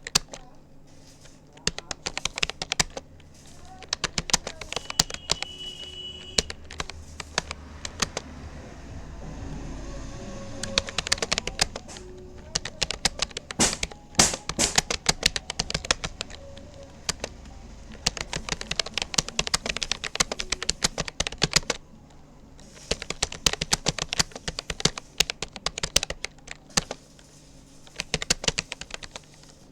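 Rapoo computer keyboard being typed on at a steady practice pace: rapid runs of key clicks broken by short pauses.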